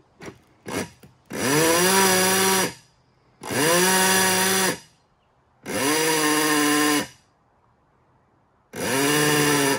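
Rewound Ford Model A motor-driven electric horn being test-sounded: a few short taps, then four blasts of about a second and a half each. The pitch rises at the start of each blast as the armature spins up, then holds steady.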